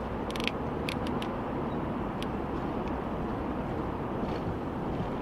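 Steady road and engine noise heard from inside a moving car, with a few short clicks in the first second or so.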